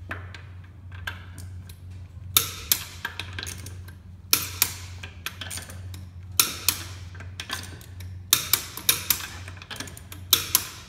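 Torque wrench and socket on the wheel bolts of a BMW F80 M3, clicking and ratcheting in short bursts of sharp ticks about every two seconds as the bolts are torqued up to 120. A steady low hum runs underneath.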